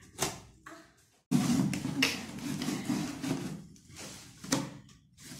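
Handling of a cardboard delivery box while trying to open it: a few sharp clicks and knocks, then a stretch of rubbing and scraping against the packaging.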